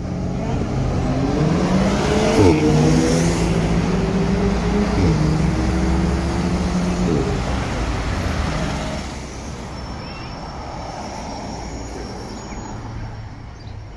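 Road traffic moving off at a city junction: a motor vehicle engine accelerates, its pitch climbing and dropping back about three times as it changes gear, loudest in the first nine seconds. After that the traffic noise is quieter and steady, with a faint high whine.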